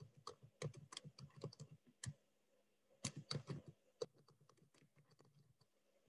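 Faint typing on a computer keyboard: quick runs of key clicks, a pause of about a second near the middle, then a few lighter, scattered taps that die away.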